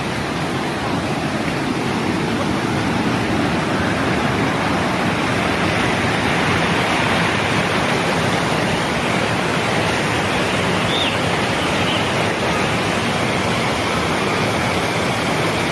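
Waterfall rushing with a steady, loud, even roar of falling water.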